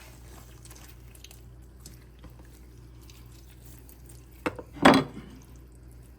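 Raw chicken skin being pulled off by hand: faint wet handling sounds over a steady low hum. A sharp click comes about four and a half seconds in, followed at once by a louder thump.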